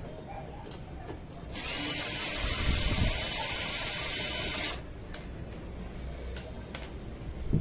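A small electric power tool runs steadily for about three seconds, starting and stopping abruptly, with a few light clicks of handling before and after.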